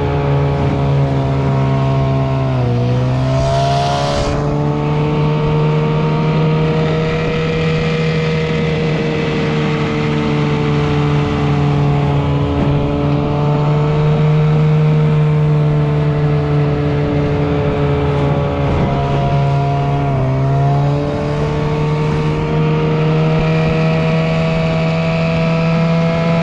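A 1979 Evinrude 6 hp two-stroke outboard runs steadily, pushing a small aluminium jon boat at speed, with water rushing along the hull. The engine's pitch sags briefly twice, about three seconds in and again about twenty seconds in, then picks back up.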